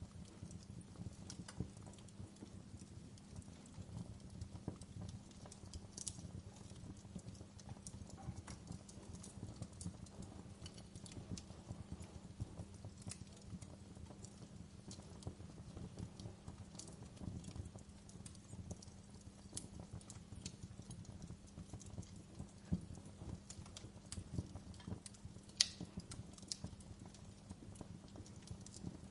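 Wood fire burning in a fireplace: a low steady rumble of flames with frequent small irregular crackles and a few sharper pops, the loudest pop a little before the end.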